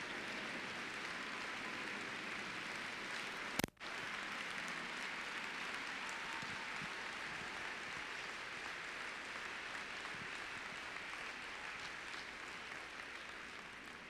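Large audience applauding steadily, tapering off near the end; a sharp click with a momentary dropout about four seconds in.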